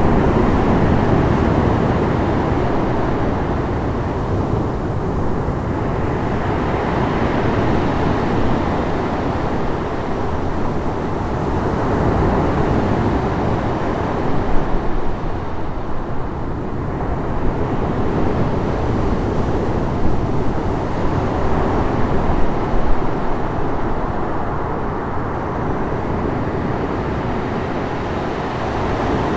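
Medium sea waves washing onto a shore: a continuous rush of surf that swells and eases every several seconds, with a few sharper splashes near the middle.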